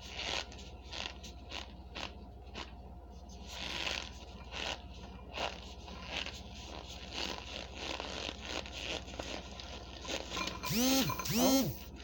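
Fingers rubbing, scraping and tapping on a hand-held canister of potato starch close to the microphone, a run of short scratchy strokes. Near the end come two brief squeaky tones that rise and fall.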